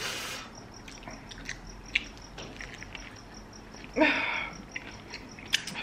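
Close-miked eating sounds: wet chewing and small mouth clicks as fried chicken on bread is eaten, with a brief voiced sound about four seconds in. A faint, even, high chirping ticks in the background.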